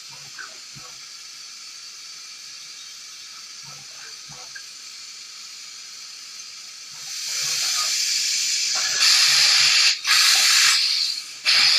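5-axis CNC machining centre at work: a steady faint hiss with a few light clicks, swelling about seven seconds in into a loud spray-like hiss that cuts off and restarts twice near the end.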